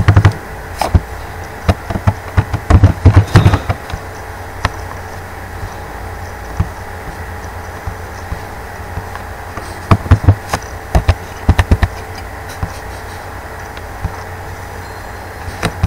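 Computer keyboard keys tapped in a quick run over the first few seconds, then a scattering of mouse clicks about ten to twelve seconds in, over a steady electrical hum.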